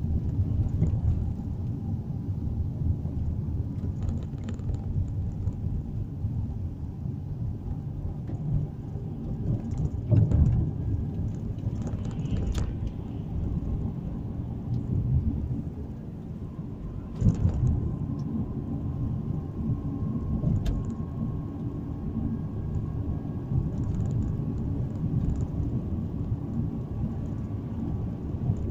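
Low, steady road rumble of a moving car heard from inside the cabin, with a few sudden thumps about ten, twelve and seventeen seconds in.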